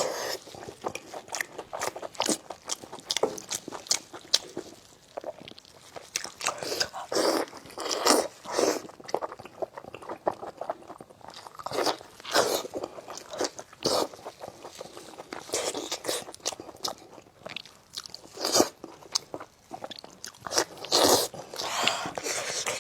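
Close-miked chewing and biting on braised spicy lamb chops, in irregular bursts with short pauses between them.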